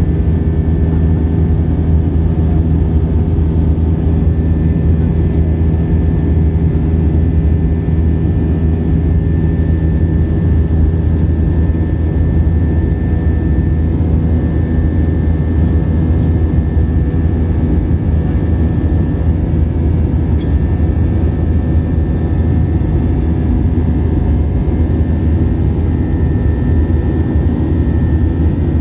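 Steady drone of an airliner's jet engines, heard from inside the passenger cabin during flight, with a few constant humming tones over a low rumble.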